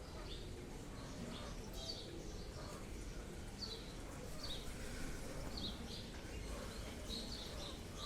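Birds chirping: short, high chirps repeated irregularly about once a second over a steady low background rumble.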